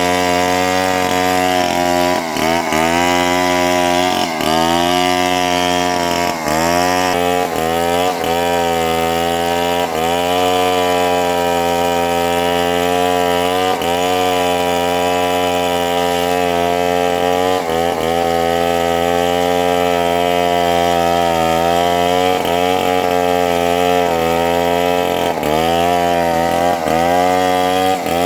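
Chainsaw running at high revs while cutting lamtoro (leucaena) wood, its pitch dipping briefly again and again as the chain bites and the engine bogs. It holds steadier through the middle, with more frequent dips near the start and near the end.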